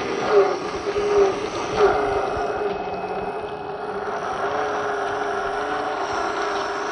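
Electric motor and geared drivetrain of a 1/10 scale Traxxas TRX-4 RC crawler whining under throttle, the pitch wavering a little, with three brief louder surges in the first two seconds.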